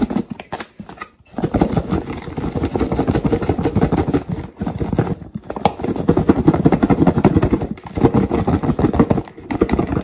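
Chopped tofu cubes tumbling and knocking inside a lidded plastic food container shaken hard by hand, to coat them in cornstarch and nutritional yeast. The shaking comes in long runs with short pauses about a second in, around the middle, and near the end.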